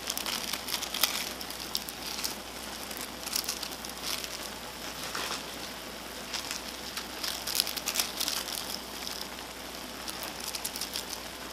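Small plastic seasoning sachets crinkling as they are torn open and shaken out over a block of dry instant ramen noodles, with scattered crackles as the dried flakes and powder land.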